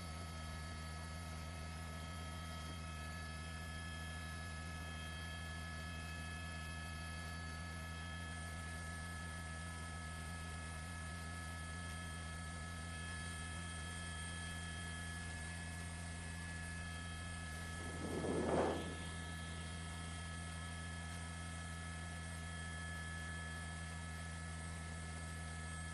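Steady low electrical hum with several faint steady high tones over it, and a brief swell of louder noise about three quarters of the way through.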